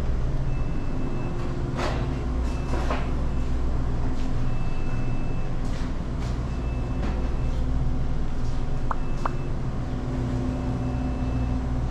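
Steady low hum of a convenience store's refrigerated drink coolers and ventilation, with a faint high tone that comes and goes every second or so and a few scattered clicks.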